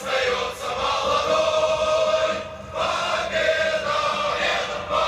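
Massed choir singing a slow song with long held notes, with a short break about two and a half seconds in.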